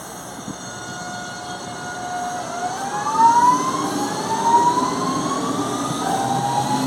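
Electric motor whine of a CPTM Série 2070 Alstom electric multiple unit train pulling away. A steady tone starts climbing in pitch about two and a half seconds in, then rises again in several steps, each glide falling back and climbing again as the train gathers speed. A low rumble grows louder underneath.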